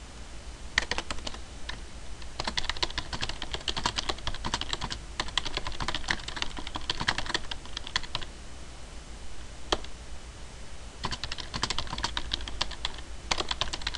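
Typing on a computer keyboard in quick runs of keystrokes. About eight seconds in there is a pause of roughly three seconds, broken by a single key press, before the typing resumes.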